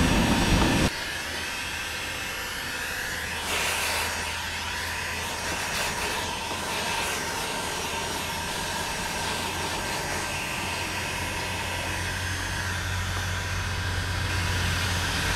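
Electric heat gun blowing steadily with a low hum while it softens polyethylene plastic for a welded repair. It drops suddenly in level about a second in, and there is a brief louder noise about three and a half seconds in.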